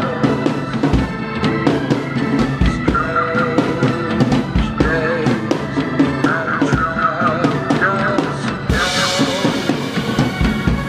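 Drum kit played along to a rock song: a steady beat of kick, snare and cymbals under a pitched melody, with a cymbal crash about nine seconds in that rings on.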